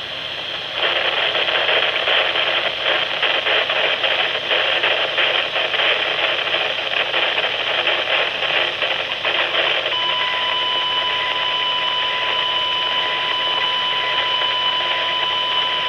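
Weather radio receiver putting out loud crackling static during a failed Required Monthly Test broadcast. About ten seconds in, a steady high tone comes in over the hiss and holds.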